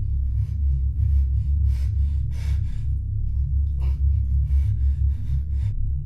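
Low, steady suspense-score drone, with short breathy gasps coming irregularly over it.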